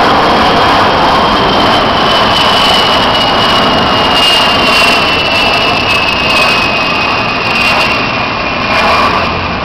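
Jet engines of a large jet aircraft flying past: a loud, steady rushing noise with a high whine that slowly falls in pitch as it goes by.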